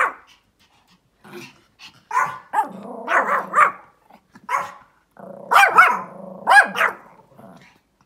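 Pomeranian barking repeatedly at a dog outside the window, alert barking in two clusters, about two seconds in and again about five seconds in, with a lower sustained sound under the later barks.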